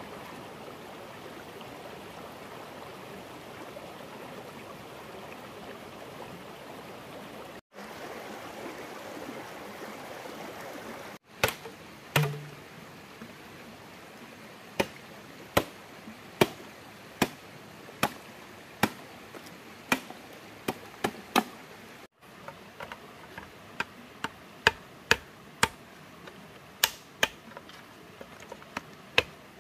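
Steady rushing of a stream. Then, after a cut, a run of sharp chopping strokes, a little more than one a second, with a few doubled strokes: a blade chopping on wood or bamboo.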